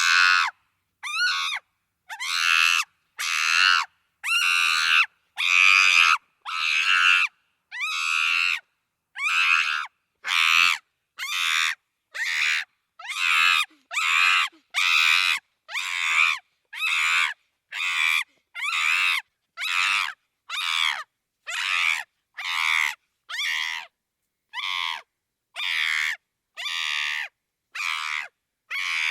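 Monkey screeching: short, high-pitched calls, one about every second, repeated some thirty times with silence between them.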